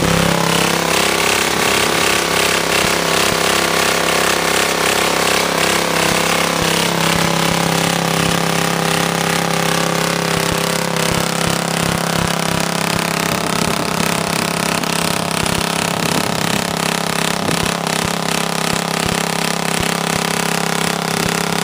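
Homelite tiller's small engine running loud through a custom exhaust pipe while the tiller works the soil. Its speed rises about a second in, sags briefly about a third of the way through under the load of the tines, and picks back up.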